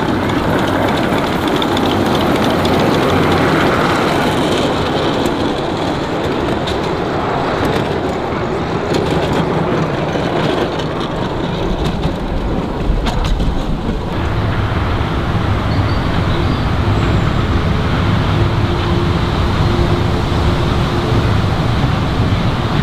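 10¼-inch gauge miniature steam train, locomotive and passenger carriages, running along the track with a steady rumble. A run of sharp clicks comes through the middle, and a deeper low hum builds in the later part.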